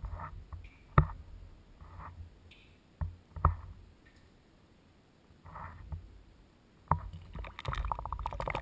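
A GoPro camera rig weighted with a dumbbell, lowered on a rope, bumping and scraping against the inside of a well: a sharp knock about a second in, two close together around three seconds, another near seven, with softer scrapes between. Near the end a fast, continuous fluttering rattle sets in.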